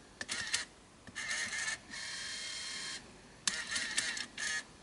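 Tape transport mechanism of a Sony TCD-D3 DAT Walkman running with its cover off: small motors whir and gears click as it shifts mode. There are two bursts of quick clicks and whirs, about a second in and again near the end, with a steady whir for about a second in the middle.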